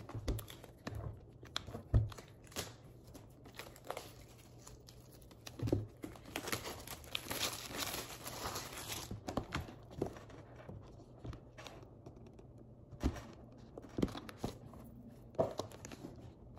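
Plastic wrap being torn and crinkled off a new laptop's cardboard box, with scattered taps and knocks as the box is handled. The crinkling is densest around the middle.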